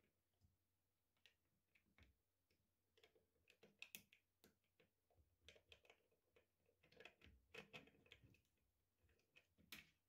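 Near silence broken by faint, irregular small clicks and rubbing as fingers handle plastic filament and a PTFE tube in a 3D-printed splicer housing.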